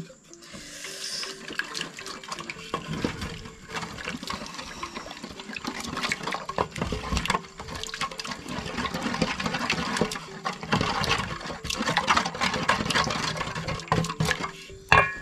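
A wooden spoon stirring and beating a thin peanut-butter-and-soup paste in a metal basin: the liquid sloshes and the spoon knocks and scrapes against the basin, with a louder knock near the end. This is peanut butter being worked into soup to thin it before it goes into the sauce.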